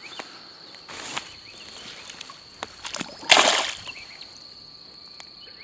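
A bass released back into a pond, hitting the water with one short splash about three seconds in, over a steady high insect drone.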